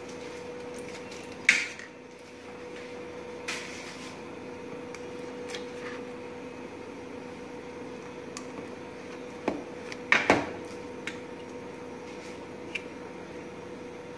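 A few light knocks and clicks from a steel cake tray being handled, the loudest pair about ten seconds in, over a steady background hum.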